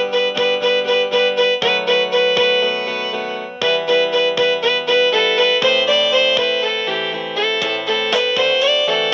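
A built-in ringtone of the LG 245 (CX245) cell phone playing: a synthesized instrumental melody of quick, sharply struck notes over held chords, steady and loud throughout.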